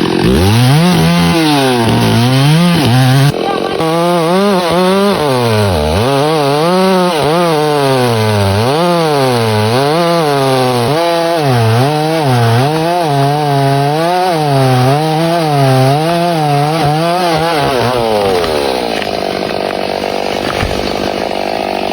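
Two-stroke chainsaw running under load while cutting wood, its engine pitch rising and falling over and over as the chain bites and frees up in the cut. Near the end the pitch drops away to a lower, steadier hum.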